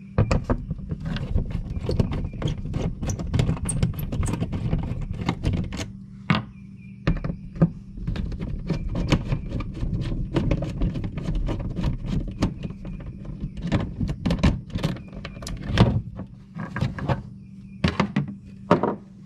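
Screwdriver backing Phillips-head screws with washers out of a plastic access panel: a dense run of small clicks, ticks and knocks of metal on plastic, with screws set down on a rubber floor mat and the panel lifted off in the second half, over a low steady hum.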